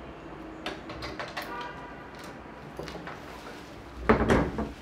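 A window being slid shut: small knocks and rattles, then a louder, short scraping sound about four seconds in.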